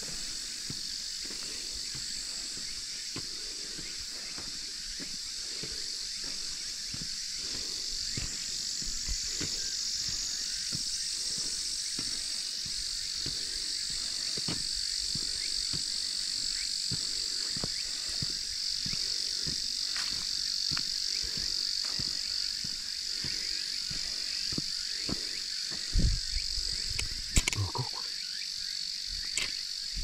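A steady, high-pitched chorus of summer insects, with footsteps on the mountain road underneath at a walking pace. A few louder thumps come near the end.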